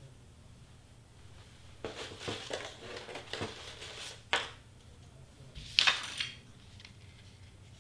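Cut cardstock pieces being handled and laid out: paper rustling and sliding, with a sharp tap a little after four seconds in and the loudest crackling swish near six seconds in.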